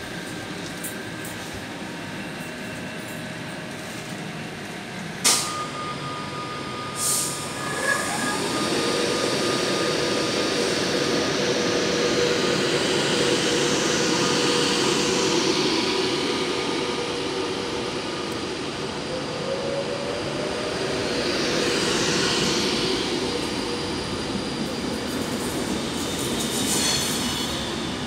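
Class 390 Pendolino electric train moving past along the platform: a steady electric whine over wheel and rail noise, with a second whine rising in pitch partway through as the train gathers speed. Two sharp knocks come before the train sound builds up.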